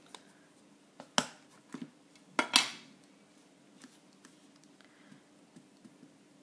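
Clacks of a plastic ink pad case and a clear acrylic stamp block being handled on a craft table: a sharp clack about a second in and a louder one about two and a half seconds in, then soft taps as the stamp is dabbed onto the ink pad.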